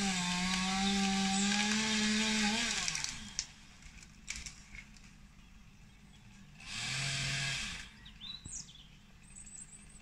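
Chainsaw running at full throttle with a steady high engine note, then dropping away about three seconds in. A second, shorter and lower burst of the saw comes about seven seconds in, and birds chirp near the end.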